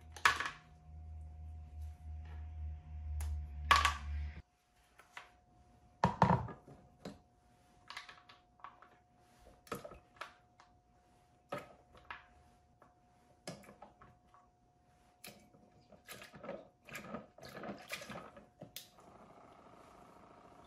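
Irregular clicks, knocks and scrapes of 3D-printed resin dental models being pried off a printer build platform with a hand tool and set down in a plastic tray. The loudest knock comes about six seconds in. A low machine hum runs underneath at first and stops about four seconds in.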